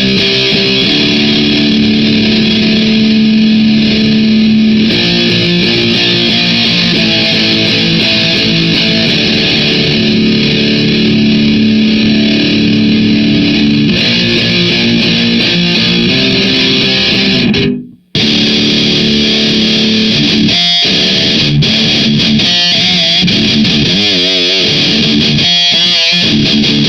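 Distorted electric guitar played through an amp head and half-stack cabinet: held, ringing metal chords that cut off suddenly about 18 seconds in, then a choppier riff with wavering, vibrato-bent squeals.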